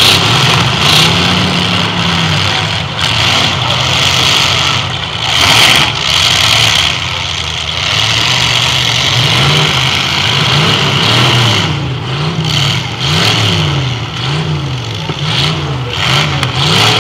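Demolition derby cars' engines running in a mud pit, revved up and down over and over, the revving coming quick and repeated through the second half.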